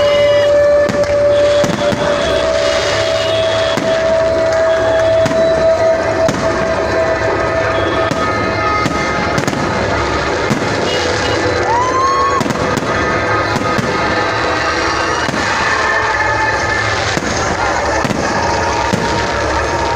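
Fireworks going off continuously in quick, dense bangs and crackles, with held whistling tones and a rising whistle about twelve seconds in.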